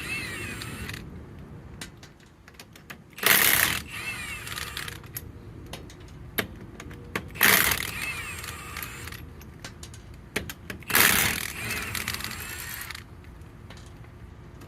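Impact wrench run in three short bursts about four seconds apart, each a loud rattling hammer followed by about a second of the motor winding down, as it drives the lug nuts on a wheel.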